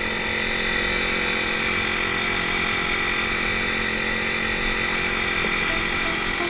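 Dragon Kayak 1.5 hp four-stroke petrol outboard running steadily at an unchanging pitch as it drives the kayak along.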